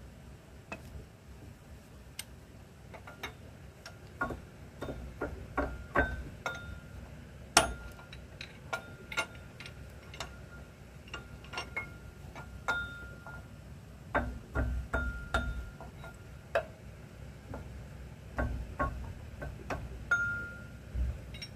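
Steel tool knocking and clinking against the timing gears of an Isuzu E120 diesel engine: irregular sharp metal clicks, some leaving a brief ring, with a louder strike about seven seconds in.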